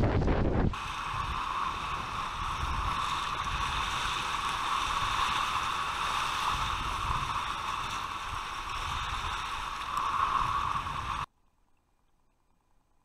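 Steady rush of river whitewater, even and unbroken, that cuts off suddenly to near silence about eleven seconds in.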